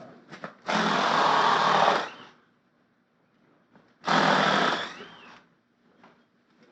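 A small motor-driven tool run in two short bursts, one about a second and a half long and a second about a second long, each winding down briefly after it stops.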